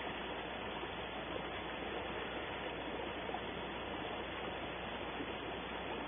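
Steady hiss with a low, even hum underneath, the noise of a wildlife nest camera's microphone, with no distinct calls or knocks.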